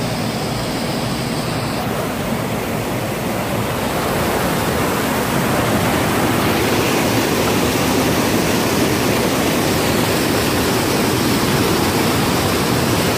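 Whitewater rushing over and between granite boulders in a creek rapid: a loud, steady rush of water that grows a little louder about four seconds in.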